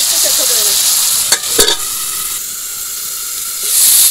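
Chopped vegetables (Malabar spinach, its stems and potatoes) sizzling in hot oil in a kadai as they are stirred, with a few quick scrapes of the spatula against the pan about a second and a half in. The sizzle drops quieter in the middle and comes back louder near the end.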